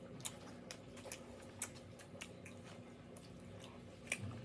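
Quiet eating sounds at a table: faint, scattered clicks of chopsticks and utensils against takeout containers, with soft chewing.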